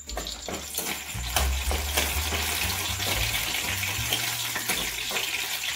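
Whole garam masala, green chillies and a bay leaf sizzling in hot oil in a steel kadai, stirred with a spoon. The sizzle starts right away and grows louder about a second in.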